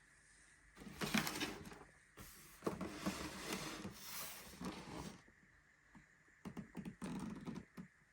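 Rustling and handling of the packaging of a Tassimo Suny coffee machine being unboxed: two stretches of crinkling and scraping with a few sharp clicks, about a second in and again near the end.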